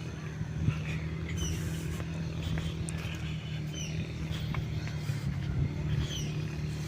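A steady engine hum, with short high falling chirps repeating about every second or so.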